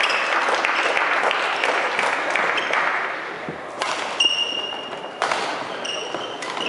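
Badminton play in a gym hall: shoes scuffing and squeaking on the wooden court and the din of play, dying down after about three seconds as the rally ends. Then a single knock, and a couple of short, high shoe squeaks near the end.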